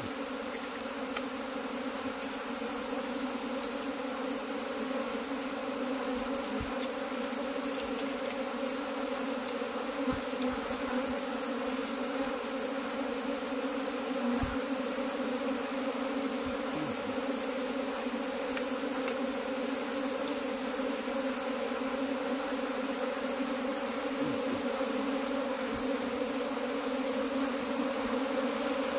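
A clustered swarm of honey bees, disturbed as it is scooped up by hand, buzzing in a steady, even hum of many wings that grows slightly louder toward the end. A few faint knocks come through the hum.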